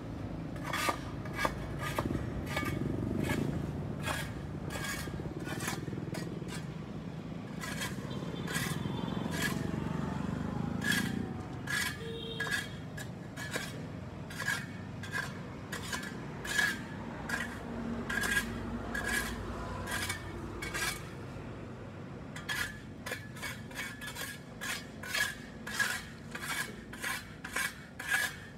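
A hand tool scraping across a sidewalk in repeated strokes, clearing caked grime and debris, each stroke a sharp scrape-and-knock. The strokes come irregularly at first, then faster, about two a second, near the end.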